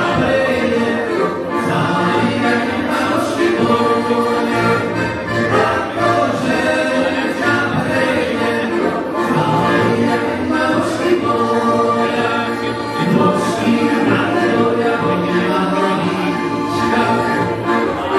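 Live band playing amplified music through PA speakers, with men's voices singing together over it.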